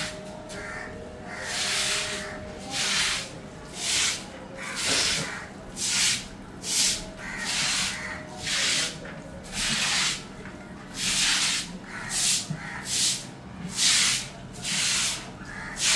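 Short bristle hand broom sweeping water across wet concrete: repeated scratchy, splashy swishes, a little over one stroke a second.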